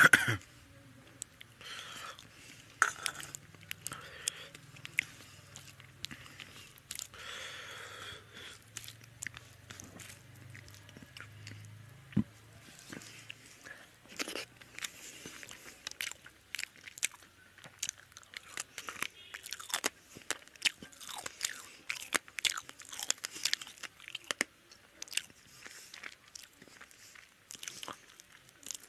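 Close-miked chewing and wet mouth sounds of a person eating rice and fish curry by hand, with many small irregular clicks and smacks. A steel bowl knocks against the plate right at the start.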